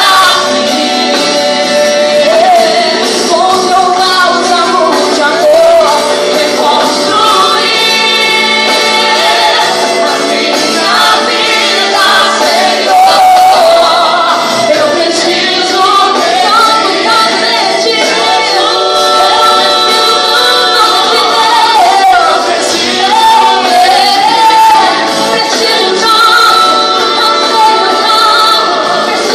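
Live Christian worship music: singing voices, led by a woman, with band accompaniment, continuous and loud throughout.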